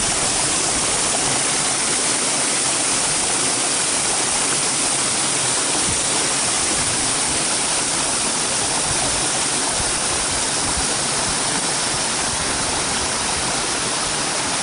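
Mountain stream rushing over rocks and logs in a narrow gorge: a steady, unbroken rush of water.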